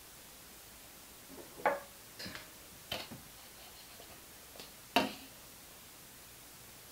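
A few light knocks and clicks of a plate and knife being handled at a wooden table, the loudest about five seconds in as the plate is set down.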